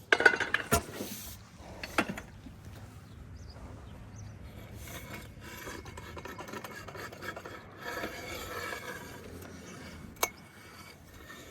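A concrete float rubbing and scraping across fresh, wet concrete as the surface is smoothed, with a few sharp knocks in the first couple of seconds and one more near the end.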